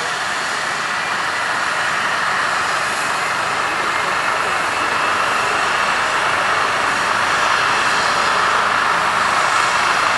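Eurocopter EC135 trauma helicopter running on the ground: a steady turbine whine and rotor rush, growing slowly louder.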